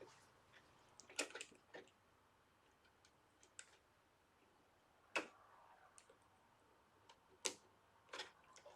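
Scattered faint clicks and taps of small plastic toy parts being handled, as a tiny bolt is fitted into a toy robot; a few louder clicks stand out about five and seven and a half seconds in.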